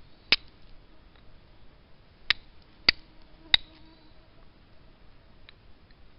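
Steel striker struck against a sharp-edged knapped quartz stone, flint-and-steel style, throwing sparks onto char cloth to catch an ember: four sharp clicks over about three seconds, then a fainter one near the end.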